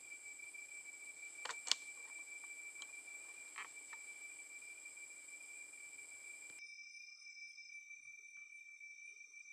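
Crickets and other night insects trilling steadily at several pitches. A steady hiss runs underneath and cuts off suddenly about two-thirds of the way through. A few sharp clicks come at about one and a half seconds and three and a half seconds, the loudest just under two seconds in.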